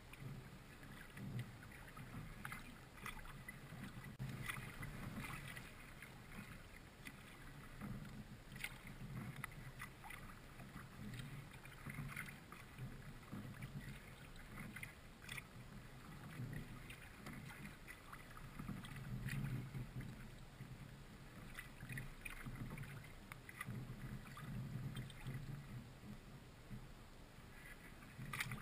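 Kayak paddle strokes in calm creek water: the blades dipping and pulling in a loose, repeated rhythm, with small splashes and drips, faint throughout.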